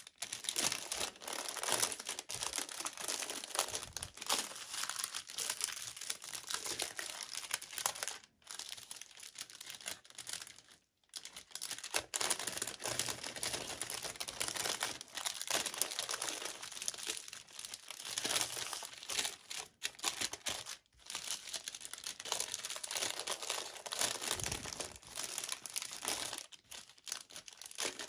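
Toy packaging crinkling and tearing as it is handled and opened by hand: a near-continuous crackle, broken by a few brief pauses.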